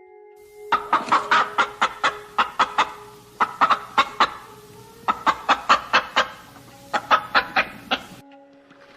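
A bird giving four bursts of rapid, sharp clucking notes, each burst about a second long, over soft background music.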